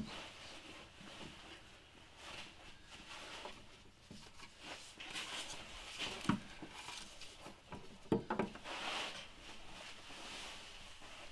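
Faint handling noise of hands and tools at an engine's timing-belt tensioner: soft rustling with a couple of light knocks, about six and eight seconds in.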